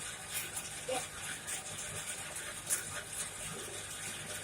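Coal forge fire burning: a steady rushing hiss with a faint low hum under it and scattered sharp crackles and ticks.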